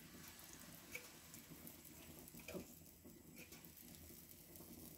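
Faint sizzle and light crackle of butter and pancake batter cooking on a hot flat-iron griddle, with a couple of soft clicks.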